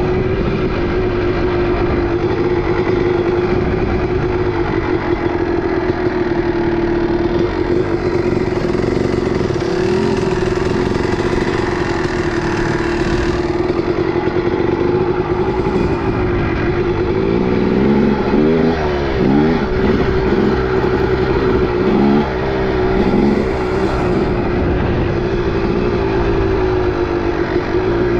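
Two-stroke dirt bike engine running at a steady pitch, with the revs rising and falling a few times past the middle.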